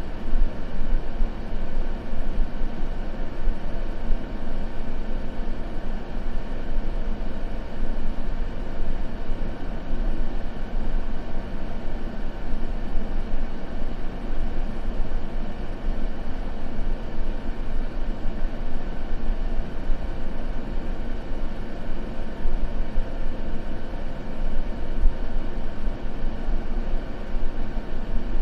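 Continuous white noise for sleep: an even, unbroken rush weighted toward the low end, so it sounds like a deep, steady rumble rather than a bright hiss. There is no fireplace crackle in it.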